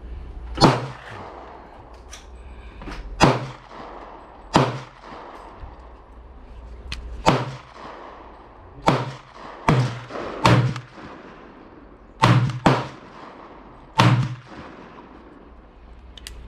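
Gunshots at a shooting range, about ten sharp reports at irregular spacing, some in quick pairs, each with a short echoing tail.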